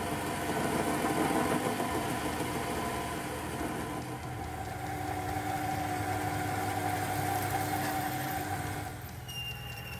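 Mini lathe running under cut as it machines an aluminium collar, then drills its centre hole with a long twist drill, giving a steady motor whine with cutting noise over it. The sound changes about four seconds in, and switches abruptly to a different sound with a steady high tone near the end.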